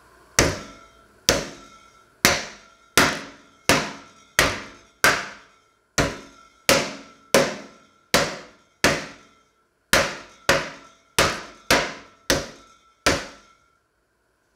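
A metal pot bangs down on a strip of raw meat on a wooden cutting board about eighteen times, at a steady pace of a little over one blow a second, pounding the meat flat. The blows stop near the end.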